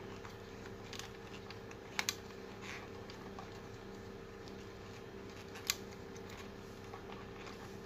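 A few small sharp clicks, two close together about two seconds in and one more a few seconds later, as fingers handle an electrolytic capacitor on a CRT TV's circuit board, over a steady low hum.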